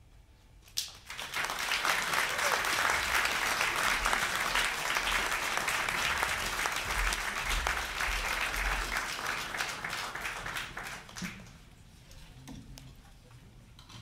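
Concert audience applauding. The applause starts about a second in, holds steady for about ten seconds, then dies down to a few scattered claps near the end.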